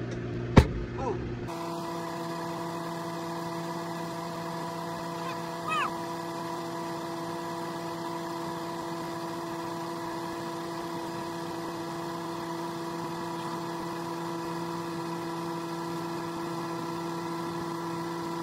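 Microwave oven running with a steady hum, after a single sharp click about half a second in.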